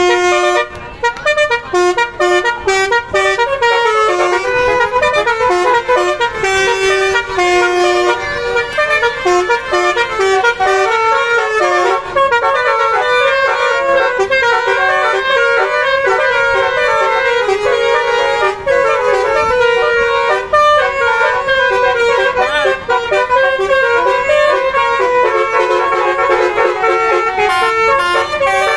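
Basuri telolet multi-tone musical horn on a car playing a long, loud melody of quick changing notes, choppy and stop-start in the first few seconds.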